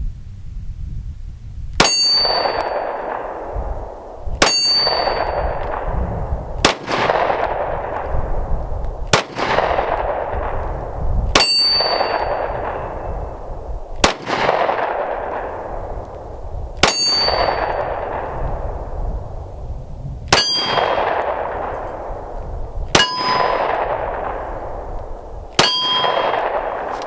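Ten slow, evenly paced pistol shots from a 9mm PSA Dagger Compact firing 115-grain Winchester Silver Tip rounds, about one every two and a half seconds. Each report is followed by a short metallic ring from the struck steel target.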